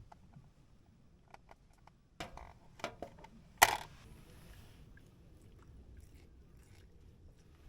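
Small clicks and knocks of camp tableware being handled, with one sharp, loud click about three and a half seconds in, followed by a brief faint hiss.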